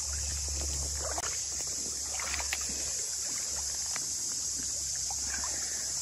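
Small splashes and water sloshing as a released rainbow trout swims off through shallow water, a scatter of short irregular splashes over a steady low rumble.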